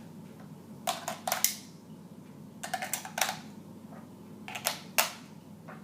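AA batteries being pressed one at a time into a toy RC helicopter handset's battery compartment: a short cluster of clicks, three times, about two seconds apart.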